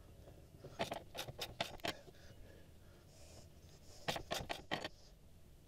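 Faint clicks and scraping of hands working a squeeze tube of sealant against an outboard mounting bolt: a cluster of quick clicks about a second in and another about four seconds in.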